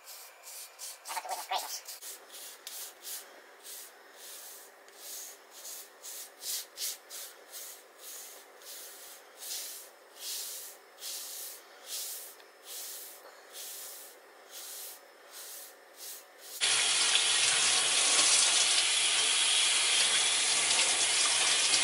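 A hairbrush stroked through short, conditioner-coated hair, giving a scratchy swish about once or twice a second. About three-quarters of the way in this cuts to a kitchen tap running steadily into a stainless steel sink as the head is rinsed under it.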